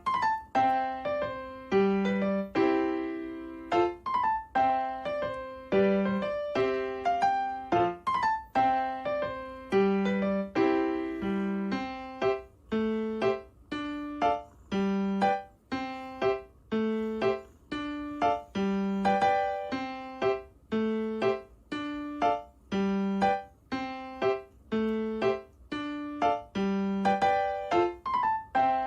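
Background music: light electric-piano tune with plucked-sounding notes at a steady bouncy pace.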